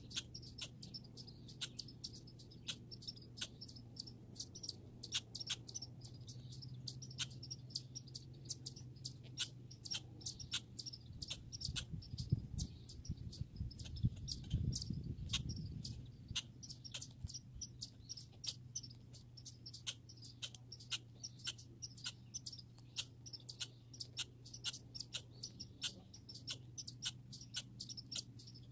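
A squirrel making a long run of short, sharp clicks, irregular and several a second, over a faint low hum, with a brief low rumble about halfway through.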